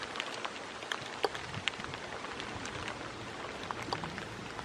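Steady rain falling, with individual drops ticking sharply and irregularly close by.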